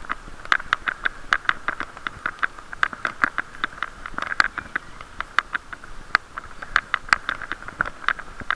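Irregular sharp ticks and taps, several a second, on a camera's sealed waterproof housing during a bike ride, over a muffled, hollow-sounding band of noise.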